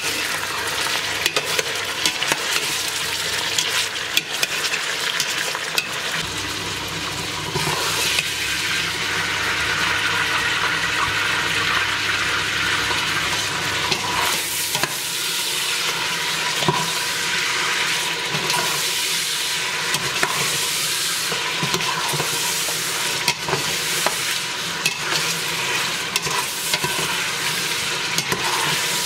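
Pieces of lamb frying and sizzling in oil with onions in a stainless steel pot. A metal spoon stirs them, scraping and clicking against the pot again and again.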